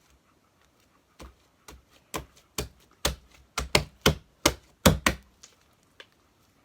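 About a dozen sharp knocks and smacks from slime being mixed in a bowl. They come irregularly, a few per second, starting about a second in, grow louder toward the middle and stop about five seconds in.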